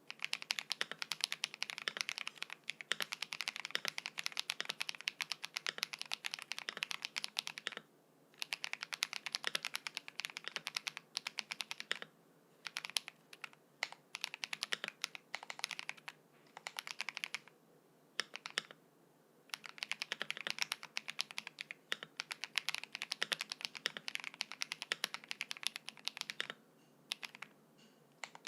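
Fast typing on a KBD67 Lite R2 mechanical keyboard fitted with lubed Drop Invyr Holy Panda tactile switches on a PC plate, with DMK Astronaut keycaps. Runs of rapid keystrokes are broken by short pauses every few seconds.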